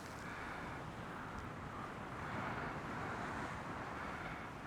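Steady wind on the microphone over the low wash of the sea, swelling gently.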